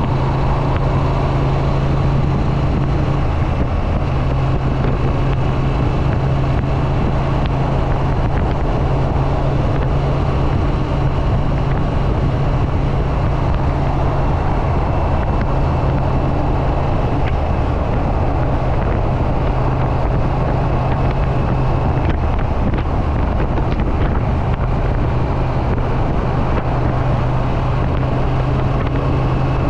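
Triumph Street Twin's 900 cc parallel-twin engine and exhaust running steadily at a cruise, with wind buffeting the microphone. The engine note dips and shifts briefly about three-quarters of the way in.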